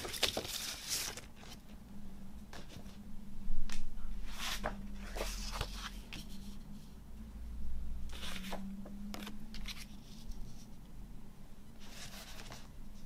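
Glossy paper and card rustling and sliding as a record's printed lyric sheet and sleeve are handled and laid on a wooden table, in a string of short separate rustles, the loudest about three and a half seconds in, over a faint low hum.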